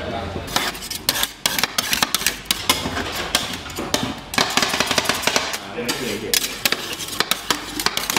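Two metal spatulas chopping and scraping ice cream base on the steel freezing plate of a Thai rolled ice cream griddle: rapid, irregular metal-on-metal clacks, starting about half a second in.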